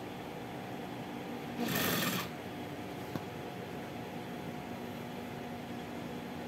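Industrial sewing machine running a short burst of stitches, about half a second long, roughly two seconds in, over a steady background hum. A faint click follows about a second later.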